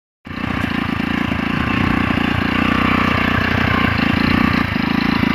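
Small engine of a homemade wheeled cultivator running steadily with a fast, even putter while it pulls a tine bar through the soil between crop rows.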